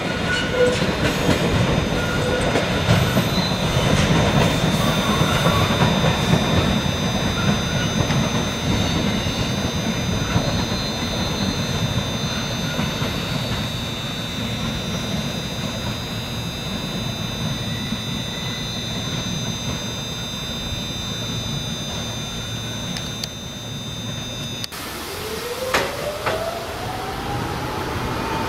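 Container freight wagons of an EF65-hauled train rolling slowly past on curved yard track, the wheels clicking irregularly over rail joints under a low rumble, with a thin steady high-pitched squeal. About 25 s in the sound cuts off suddenly, and a single whine rises steadily in pitch over the last few seconds.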